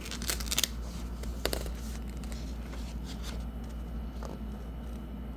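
Light handling sounds: a few short clicks and rustles in the first couple of seconds, the sharpest about a second and a half in, over a steady low hum.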